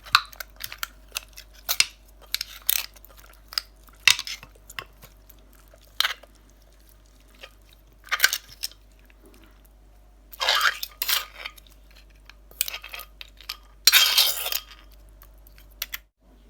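Eating sounds: spoon and utensils clinking and scraping against dishes in quick, irregular clicks, with a few longer crunching or scraping stretches about two thirds of the way through and near the end.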